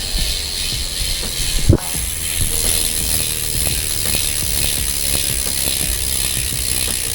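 Rear freehub of a carbon road bike ticking rapidly and evenly as the wheel spins freely, the pawls making a continuous buzzing ratchet; one knock about a second and a half in. The hub sound is decent but not especially rich.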